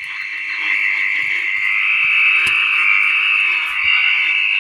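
Crown TR-680 six-transistor radio hissing and buzzing with loud static and interference through its small speaker, with a faint steady hum under it. The owner puts the interference down to a computer monitor switched on nearby.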